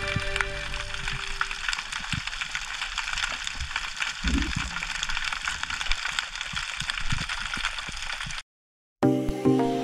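Underwater ambience of the sea: a dense, steady crackle of tiny clicks picked up by a camera in its underwater housing. Background music fades out under it at the start, and music comes back after a brief silence near the end.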